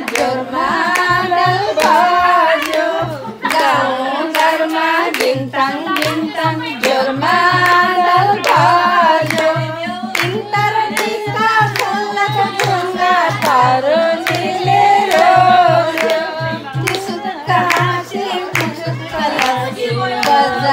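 Group of women singing a Nepali folk song (lok geet) together, clapping their hands in time, over a low steady beat about twice a second.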